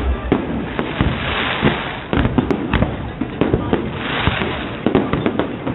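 Aerial fireworks bursting: many irregular bangs and pops in quick succession, with a couple of short stretches of hissing between them.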